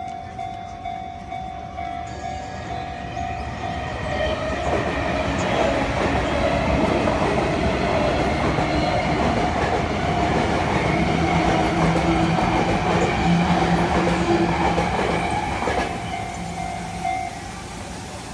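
Japanese railway crossing alarm bell ringing in an even repeating rhythm while a Sotetsu Line electric train passes over the crossing. The train builds up about four seconds in, runs loud with a steady low hum under it, and fades about sixteen seconds in; the bell stops shortly after.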